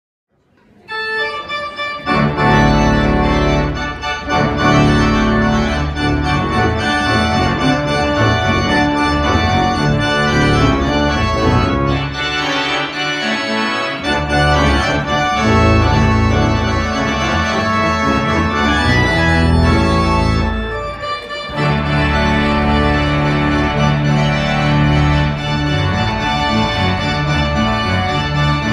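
Three-manual pipe organ playing a loud fanfare in full chords over deep bass notes. It starts about a second in, and the deep bass drops out briefly twice.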